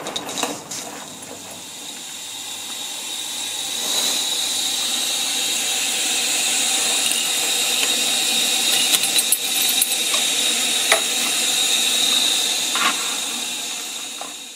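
Coal-fired gauge 1 live-steam model locomotive hissing steam: a steady high hiss with a thin tone in it that swells about four seconds in and fades near the end, with a few light clicks partway through.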